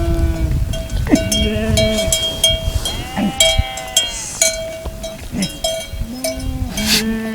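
A large flock of sheep bleating, many calls overlapping, with bells clanking among them.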